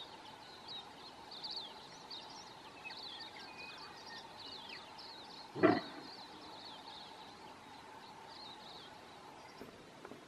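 A red deer stag gives a single short, deep grunting roar about halfway through, loud against faint background birdsong chirps and a steady faint drone.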